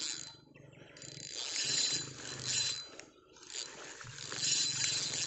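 Spinning reel whirring in three spells of about a second each while a hooked black bass is played on the line.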